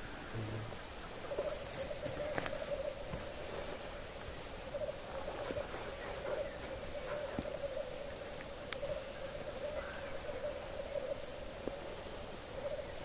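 Male black grouse at a lek giving their bubbling, cooing display song, a continuous warbling chorus that starts about a second in.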